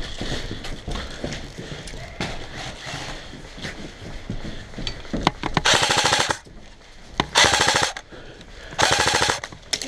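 Airsoft electric gun, a CYMA AKS-74U, firing three short full-auto bursts in the second half, each a rapid clatter of shots under a second long, about a second apart, with scattered single shots before them.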